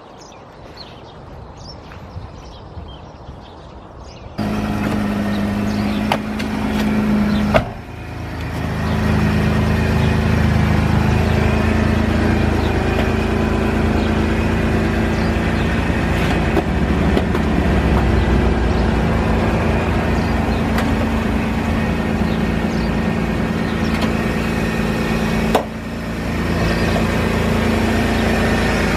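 1982 Mack R-series truck's diesel engine idling loudly and steadily on jumper leads, after it has sat unused for a while. It comes in about four seconds in after a quieter start.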